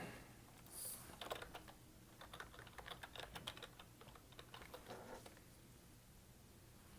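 Faint, irregular light clicks and taps of hands handling a mini vinyl figure and its packaging, most of them between about one and five and a half seconds in.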